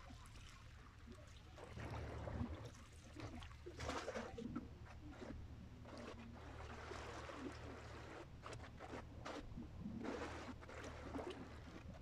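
Small sea waves lapping and splashing against the shore in uneven surges, over a steady low wind rumble on the microphone.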